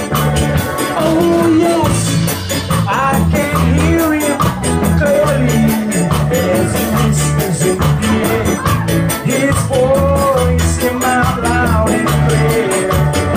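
Live band playing an upbeat song: a singer over a repeating bass line, with a fast, steady shaker rhythm.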